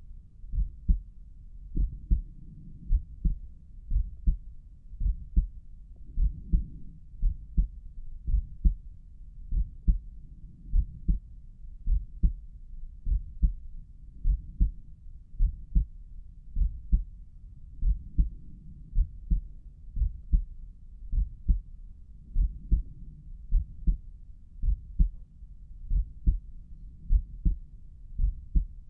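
Human heartbeat heard through a stethoscope placed at Erb's point on the chest: regular lub-dub pairs of low thumps, about one beat a second, with a faint low rumble between beats. The heart is beating hard, pounding enough to make the neck's carotid arteries visibly pulse.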